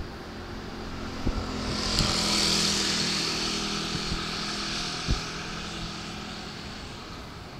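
A vehicle passing by: a hiss with a low hum that swells to a peak about two seconds in and then slowly fades, with a few sharp knocks along the way.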